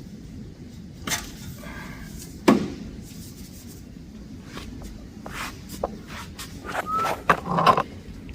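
Scattered clicks and knocks of hand work on a car's brake: one sharp knock with a short ring about two and a half seconds in, and a busier run of clicks and clatter near the end.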